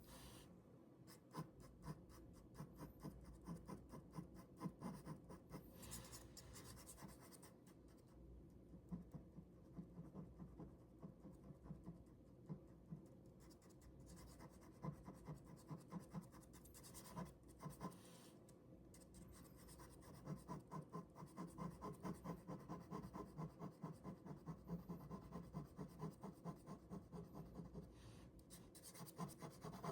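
Ballpoint pen drawing on paper: faint, quick scratchy strokes that become a faster, more even back-and-forth hatching in the last third.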